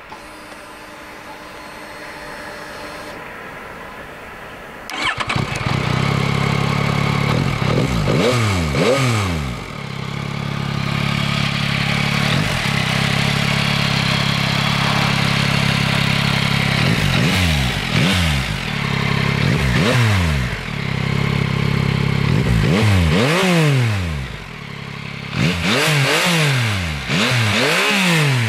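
A 2022 Yamaha MT-09's 890 cc inline three-cylinder engine on its stock exhaust starts about five seconds in and settles to a steady idle. It is blipped repeatedly, the revs rising and falling back to idle, several times in quick succession near the end.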